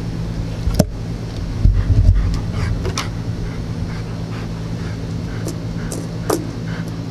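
A golden retriever's small sounds, including a short falling whine near the end, with a few sharp clicks over a steady low hum.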